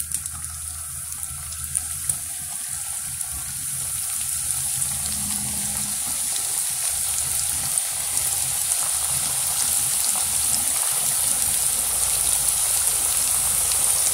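Potato samosas deep-frying in hot oil: a steady sizzle that grows louder as more samosas are lowered into the pan, with a few small pops.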